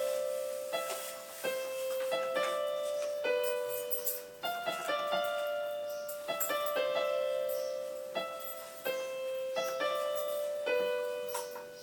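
Instrumental keyboard melody in a piano-like tone: notes struck one or two at a time, about one to two a second, each ringing and fading before the next.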